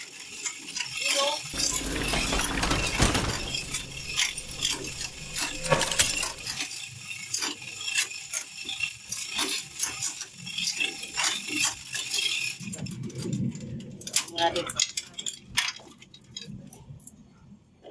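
Hand-operated chain hoist's chain clinking and rattling as it is pulled to lift an engine out of a jeep, with repeated metal clinks and knocks from the chain and the swinging engine. A low rumble comes about two seconds in.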